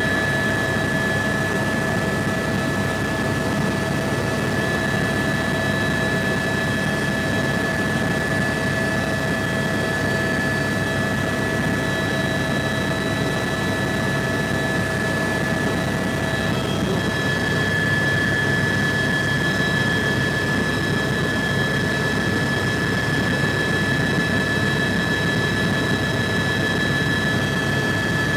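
Cabin noise of a Bell 206 helicopter in flight: its Allison 250 turboshaft and rotor drivetrain running steadily, a high whine over a dense rumble. The whine's pitch shifts slightly about two-thirds of the way through.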